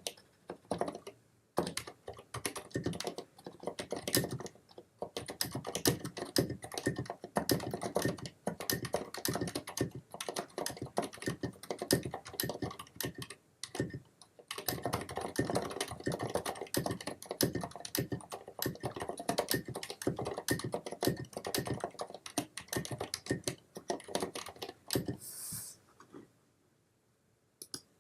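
Typing on a Filco Majestouch 2 TKL mechanical keyboard with Cherry MX Silent Red switches and SA-profile keycaps: a fast, continuous run of damped keystrokes with brief pauses, stopping about two seconds before the end.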